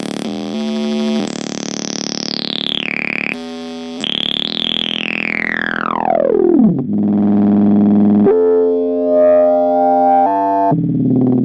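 Electronic synthesizer sound design: choppy stop-start tones, then a long descending pitch sweep about four to seven seconds in that falls into a sustained low drone of layered tones.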